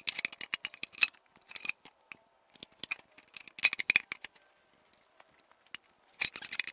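Hand tools working on metal engine parts: rapid, light metallic clicks and clinks in three short bursts, at the start, around the middle and near the end.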